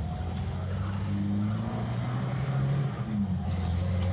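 Car engine running as the car drives off, steady and even, with a brief dip about three seconds in. The engine has its pistons fitted turned 180 degrees and runs with no sign of abnormality.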